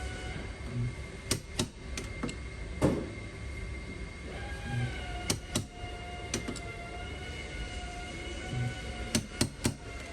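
Background music of sustained tones with a slow low beat, with a scattering of sharp clicks and knocks over it, the loudest about three seconds in and a quick run of three near the end.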